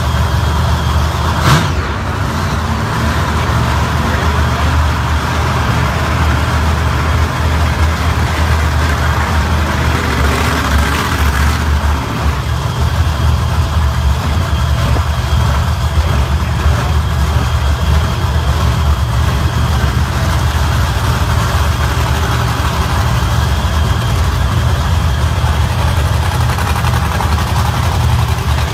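A large engine idling steadily, a deep even rumble, with a single sharp click about a second and a half in.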